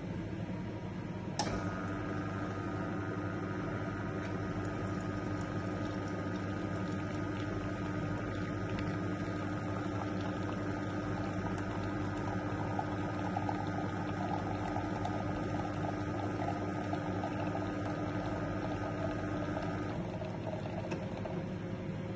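Franke A800 coffee machine running a cappuccino: a click, then a steady pump hum with liquid running that stops suddenly near the end.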